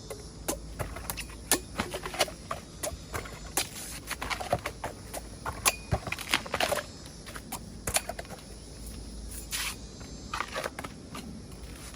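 Bamboo shoots being cut: irregular sharp cracks and snaps, several a second, with a couple of longer rustling sounds near the end.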